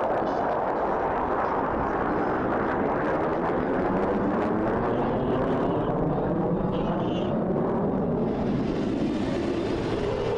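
F-16 Fighting Falcon fighter jets flying overhead: steady jet engine noise whose tone slowly sweeps up and down as they pass.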